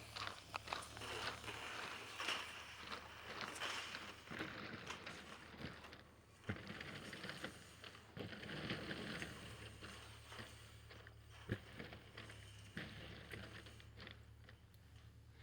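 Faint rustling, scraping and irregular clicks of a stiff dimpled plastic foundation membrane (Delta-MS) being handled, over a steady low hum.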